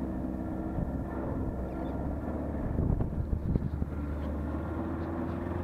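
1988 Johnson 28 hp outboard motor running steadily under way, pushing a 14 ft aluminum boat. A few thumps and knocks come through about three seconds in.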